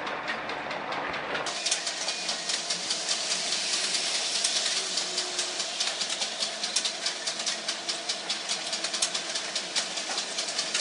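Model trains running on the layout: a rapid, steady clatter of wheels on track with a faint motor hum. It gets louder about one and a half seconds in.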